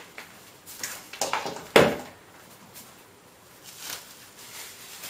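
Bubble wrap crinkling and rustling in irregular bursts as it is pulled off a laptop palmrest, loudest a little before two seconds in. A short knock comes at the very start.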